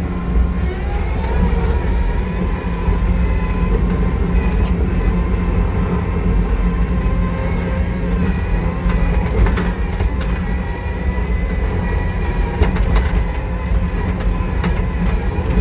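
John Deere 331G compact track loader's diesel engine running steadily under load, with a hydraulic whine that sets in about a second in and a rattle of the tracks as it moves.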